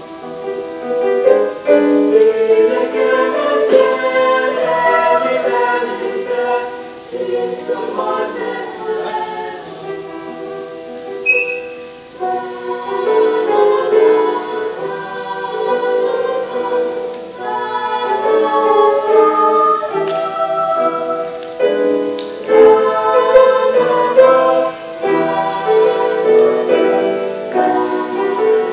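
Small mixed high-school choir singing a Christmas piece in harmony, in sustained phrases with short breaths between them.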